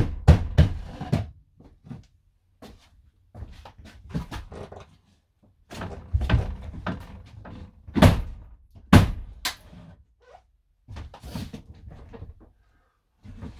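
Irregular knocks and thuds, with a few sharp strikes, from hand tools working at the camper van's interior fittings to break a part loose.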